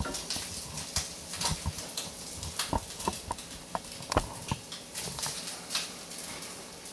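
Crab cakes frying in a pan: a steady sizzle with irregular pops and clicks of spattering oil.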